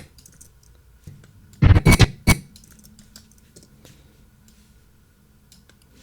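Computer mouse clicks and keyboard taps while cutting a track on an editing timeline, with a few short, loud bursts about two seconds in.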